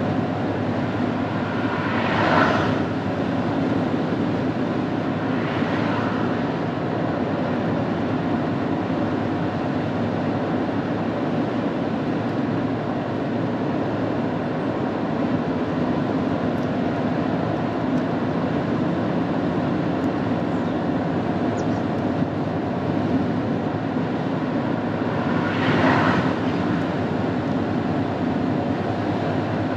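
Steady road and engine noise of a Mercedes-Benz W124-series car driving, heard from inside. A passing vehicle whooshes by about two seconds in, a fainter one a few seconds later, and another near the end.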